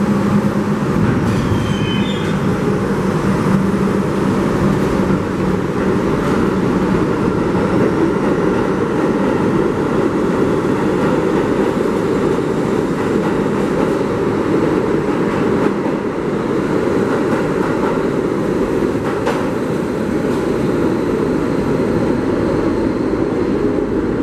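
New York City subway train running, with a steady rumble of wheels on rail and a brief high wheel squeal about two seconds in.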